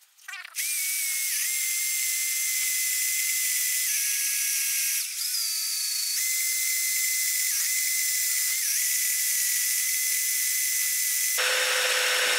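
Electric drill running at high speed, drilling a hole in metal: a steady high whine that dips briefly a few times as the bit bites, then turns louder and harsher with a lower tone near the end.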